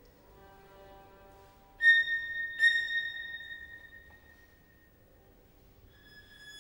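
A high, piercing violin note enters suddenly and loud about two seconds in over faint held tones, is struck again half a second later, then fades away over about two seconds. Near the end another high held note begins softly.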